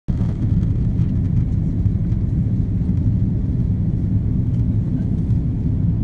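Steady low rumble of engine and airflow noise inside the cabin of an Airbus A330-300 descending on approach to land.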